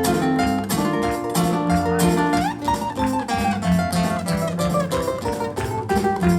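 Praise music led by plucked guitars, with held notes over a bass line and a steady beat.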